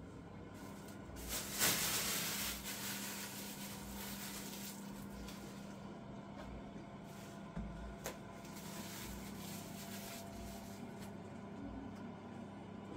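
Quiet kitchen handling sounds: plastic bowls and containers being picked up and set down, with a rustle about two seconds in and two light knocks about eight seconds in, over a steady low hum.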